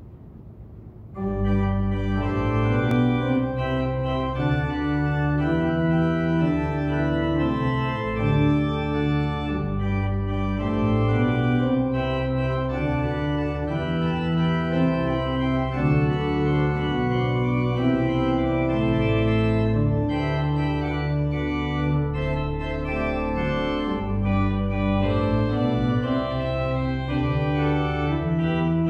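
Organ playing a prelude to a church service: slow sustained chords over a bass line, beginning about a second in.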